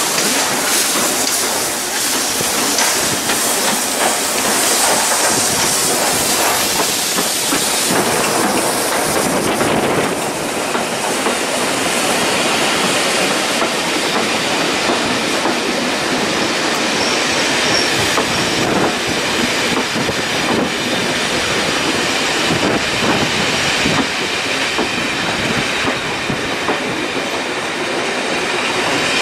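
Steam locomotive 46100 Royal Scot, of the LMS Royal Scot class, runs past, followed by its long rake of coaches. The wheels clatter steadily over the rail joints, with some squeal from the wheels.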